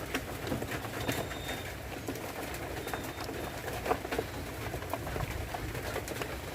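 Light clicks and taps of small screws and plastic toy-bicycle parts being handled during assembly, over a steady low background sound.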